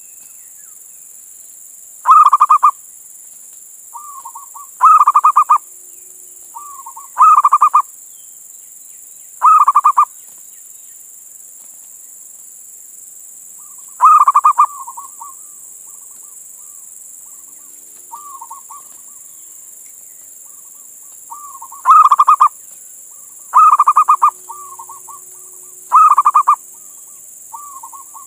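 Male zebra dove (perkutut) singing its cooing song: loud, rapidly trilled coo phrases, each about half a second long and led by soft short notes, repeating every two to three seconds, with a quieter stretch of only soft notes in the middle.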